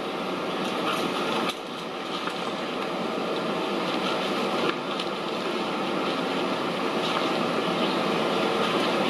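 Distant vehicle noise: a steady rushing that grows slowly louder.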